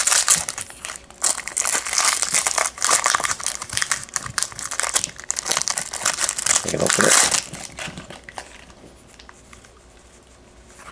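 Foil wrapper of a trading-card pack crinkling and tearing as it is ripped open by hand, in irregular crackling bursts; the crinkling dies down to a faint rustle about eight seconds in.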